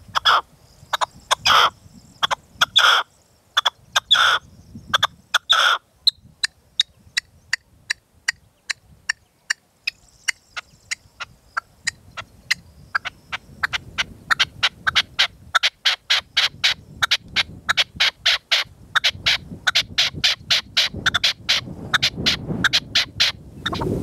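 Caged red-legged partridge decoy calling: several loud, harsh calls in the first six seconds, then a long run of short clipped notes that speeds up and grows louder toward the end. Gusty wind rumbles on the microphone, strongest near the end.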